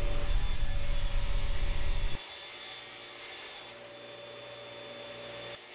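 Table saw crosscutting a hollow plywood column on a crosscut sled, wood rubbing and rasping against the blade and sled. A heavy low rumble stops suddenly about two seconds in, leaving a steady hum and a hiss that fades away shortly after.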